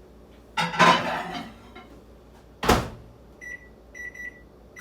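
A microwave oven's door shuts with a sharp knock after a brief handling noise. Then the keypad gives a series of short high beeps as a cooking time of 4 minutes is keyed in.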